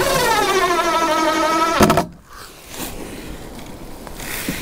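Cordless drill-driver driving a screw into a plastic gutter bracket on a wooden fascia. The motor whine sags in pitch as the screw bites, then stops with a sharp knock just under two seconds in.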